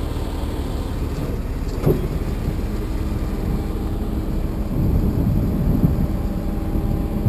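Freightliner M2 tow truck's diesel engine running steadily at idle, with a short knock about two seconds in and a faint steady whine joining about three seconds in.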